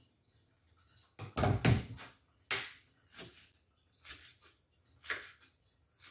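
A few separate knocks and thuds of household handling, the loudest a double thud about a second and a half in, followed by several lighter knocks.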